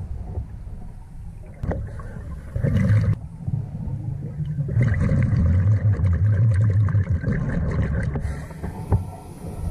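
Scuba diver's regulator breathing underwater: a short burst of bubbling near 3 s, then a long exhale of rumbling, gurgling bubbles from about 5 to 8 s.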